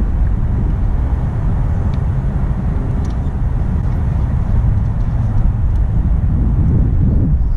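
Wind rumbling on the microphone, steady and low with gusty swells, with a few faint light clicks.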